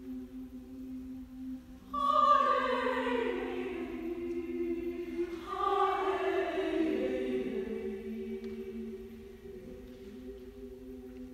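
Women's choir singing: a steady chord is held underneath while louder phrases come in about two seconds in and again a few seconds later, each falling in pitch before settling back into the held chord.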